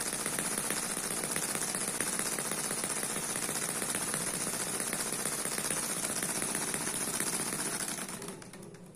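Eachine EM1 four-stroke opposed-piston model engine running fast and steady, a rapid even stream of firing clicks, fading out near the end.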